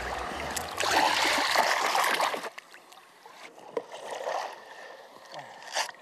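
Seawater splashing and sloshing around people wading beside a paddleboard, loudest for the first two seconds or so, then quieter lapping.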